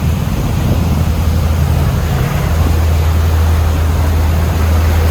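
Boat engine running steadily with a low drone, under a steady rushing noise.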